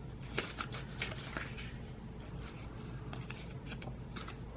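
Paper rustling and crinkling as printed leaflets are handled and unfolded, with a few crisper rustles in the first second and a half, over a steady low hum.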